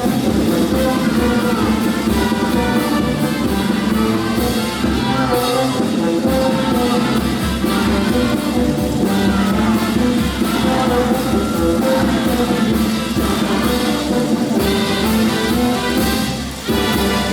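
Marinera norteña music played by a brass band, with trumpets and trombones over a steady beat and a singing voice.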